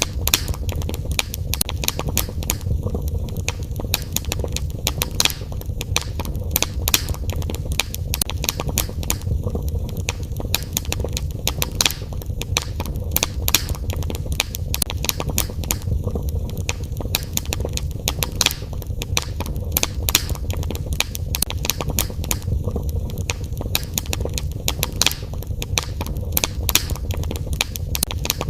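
Wood fire crackling in a fireplace: frequent, irregular sharp pops and snaps over a low steady rumble.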